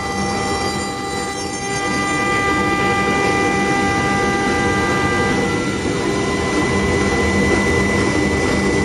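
CNC wood-turning lathe running: a loud, steady machine noise with several steady whining tones on top, some of which stop about halfway through.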